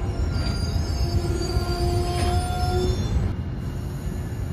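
Train wheels squealing against the rails as a train moves through, several thin steady tones coming and going over a continuous low rumble, starting about a second in.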